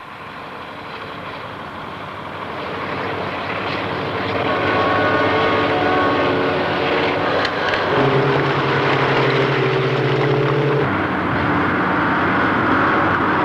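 Heavy diesel engine of a Terex dump truck running, growing louder over the first five seconds and then holding steady, with its engine note changing about eight seconds in and again near eleven seconds.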